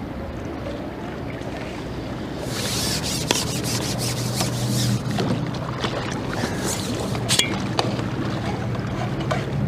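Wind buffeting the microphone beside a river, gusting up about two and a half seconds in. Scattered sharp clicks and a low steady hum run under it.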